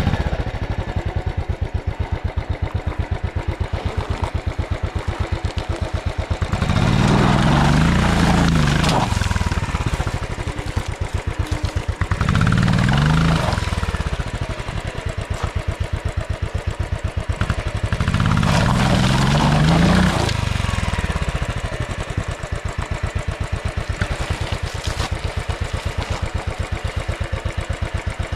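Royal Enfield motorcycle engine running at low speed with a steady train of firing pulses, revved up three times, about seven, twelve and eighteen seconds in, each rev rising then falling in pitch as the bike works over a rough dirt track.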